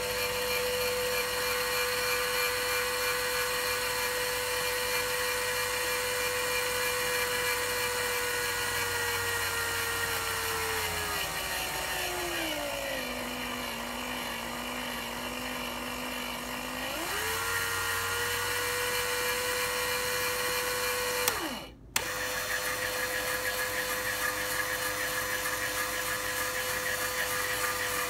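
DC gear motor driving a 3D-printed worm-gear jack screw, running with a steady whine. Partway through the whine glides down in pitch as the speed is turned down, holds low, then rises back as the speed is turned up. About three-quarters through it cuts out for a moment with a click and starts again, running the screw the other way.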